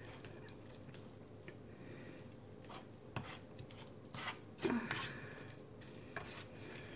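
Metal fork scraping and tapping against a foil tray while cutting out lasagna, a series of short scrapes and clicks that grow busier and louder about four to five seconds in.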